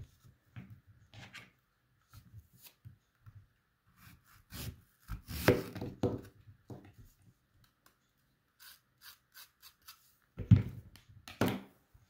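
A wavy-edged Victorinox tomato knife cutting through a raw apple on a plastic cutting board: short crunching scrapes, with knocks of the blade and handling on the board. The loudest knocks come about halfway through and again near the end.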